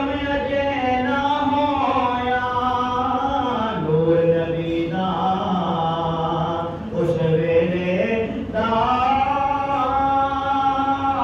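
A man chanting in long, held, melodic notes. His voice steps down to a lower pitch about four seconds in and climbs back up about four seconds later.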